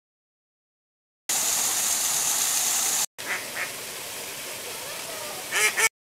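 Small garden waterfall splashing in a steady rush that starts about a second in and cuts off just after three seconds. After a brief break, quieter running water with ducks quacking twice, then a louder burst of quacks near the end.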